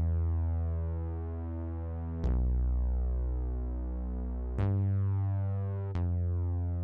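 Background music of slow, low, sustained notes, a new one struck every two seconds or so, each fading gradually.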